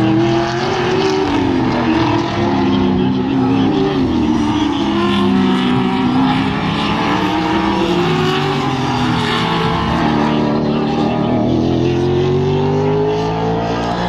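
V8 saloon race cars running on the circuit, more than one heard at once, their engines rising and falling in pitch as they brake, change gear and accelerate through the corners.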